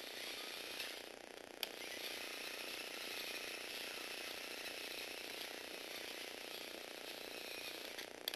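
Small black Lego Technic robot's electric motor and plastic gear train whirring steadily as it drives along, with a sharp click about a second and a half in.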